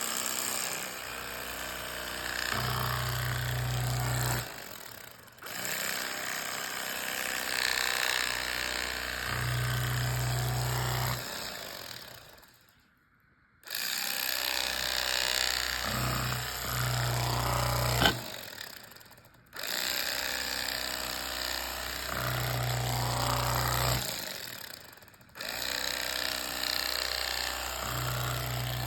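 Electric carving knife slicing through a bacon-wrapped pork loin, its motor buzzing in runs of several seconds that stop and start again about five times.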